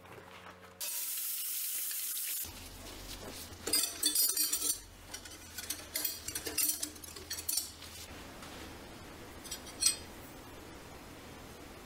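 A short steady hiss early on, then metal cutlery clinking and a cloth rustling as spoons, forks and knives are wiped dry and laid out on a fabric tablecloth, with one sharp clink near the end.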